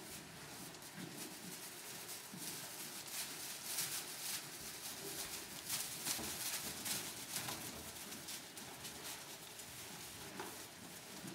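Young Cormo lambs' hooves rustling and pattering in straw bedding as they scamper about, an irregular scatter of light crunches and clicks, busiest in the middle.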